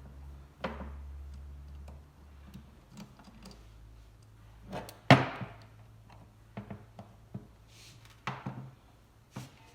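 Scattered sharp knocks and clicks of hand tools and metal parts being handled during work on a starter motor, with one loud knock about five seconds in. A low hum stops about two seconds in.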